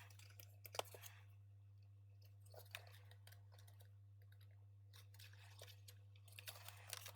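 Near silence with a steady low hum, broken by faint clicks and rustles of circuit-board and keyboard parts being handled. One sharper click comes under a second in, and a few more come toward the end.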